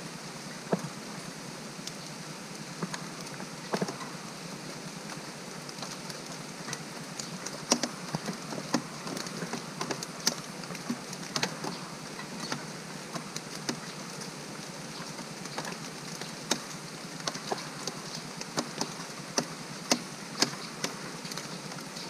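Steady rain falling, with drops hitting a hard surface in sharp, irregular ticks.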